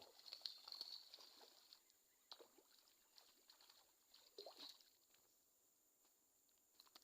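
Near silence: faint outdoor quiet with a few soft clicks and brief high chirps.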